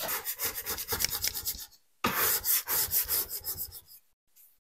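A knife blade scraped quickly back and forth across a wooden butcher-block counter, clearing off flour, in two runs of rapid strokes with a short pause between them.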